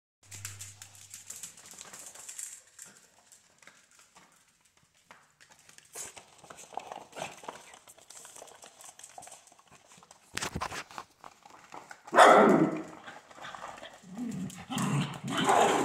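Two dachshunds playing: claws ticking and scrabbling on a hard floor and a blanket, faint at first. A sudden, much louder burst of dog sound comes about twelve seconds in, and louder dog vocalizing follows over the last couple of seconds.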